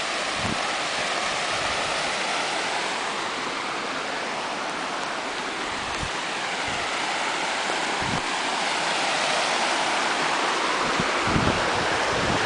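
Steady rush of water from a small stream and waterfall cascading over rocks, with a few low thumps on the microphone.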